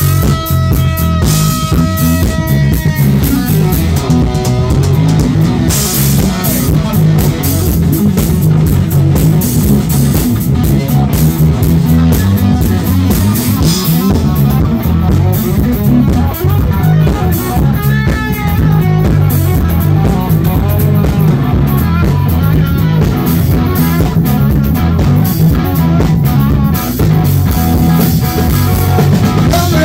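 Live rock band: a Telecaster-style electric guitar playing lead over drum kit and bass guitar. A long held guitar note opens, and bent, wavering notes come about eighteen seconds in.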